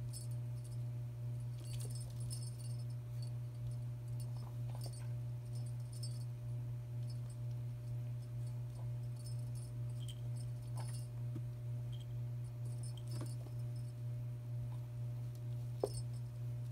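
A small cat toy dangling on a string jingles in short bursts every few seconds as kittens bat at it, with light ticks of paws and claws on a wooden floor. A steady low hum runs underneath.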